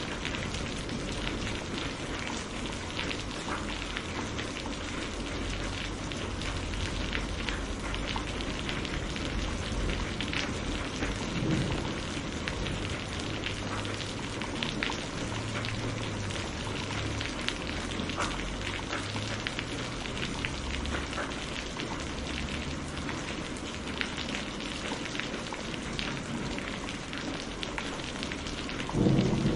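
Steady heavy rain, an even hiss speckled with the patter of individual drops hitting a surface. Near the end a louder low rumble of thunder sets in.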